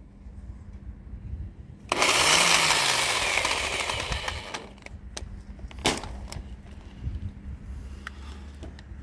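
About two seconds in, a sudden loud rush of noise sets in and dies away over two to three seconds. After it come a sharp click and lighter clicks and knocks as a Kinzo 900 W rotary hammer drill is handled in a metal shopping trolley.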